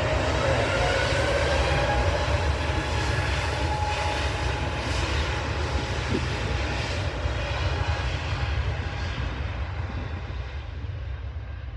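Airbus A320neo jet engines as the airliner departs: a loud, broad rush with a faint whine. It is loudest about two seconds in, then slowly fades as the aircraft moves away.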